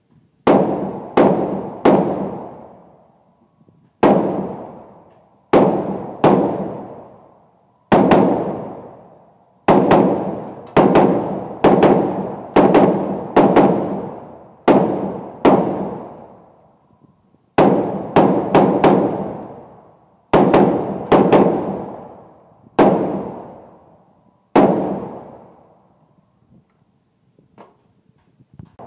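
Some two dozen gunshots from a semi-automatic firearm at an indoor shooting range, fired singly and in quick pairs at an uneven pace, each followed by a long echoing decay. The firing stops about four seconds before the end, leaving only faint handling clicks.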